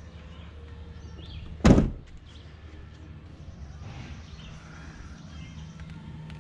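A pickup truck's door shutting once, a single heavy thunk about a second and a half in, over a steady low hum.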